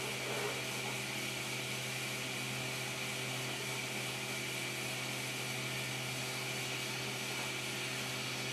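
Fadal CNC vertical mill running, a small end mill cutting a brass part: a steady machine hum with a steady higher tone over it, unchanging throughout.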